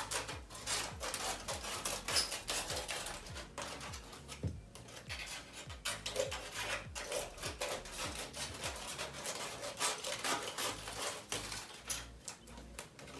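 Scissors snipping through crumpled aluminium foil, the foil crinkling and rustling as it is handled.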